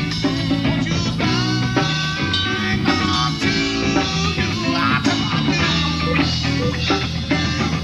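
Live rock band playing, with electric guitar and electric bass, heard through a poor-quality VHS recording.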